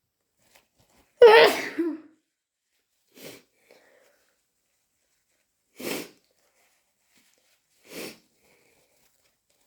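A person sneezing hard once about a second in, brought on by hay fever, then three short, quieter bursts a couple of seconds apart.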